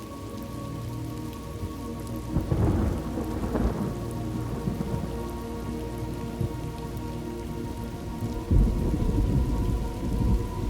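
Steady rain with two rolls of thunder, one about two seconds in and a longer one about eight and a half seconds in.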